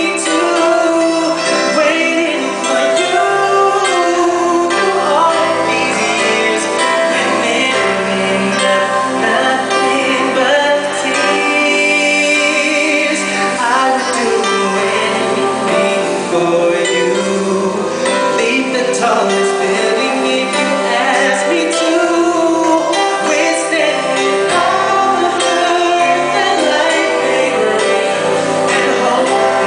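Live band playing a soul ballad, with a male singer's vocals over the band.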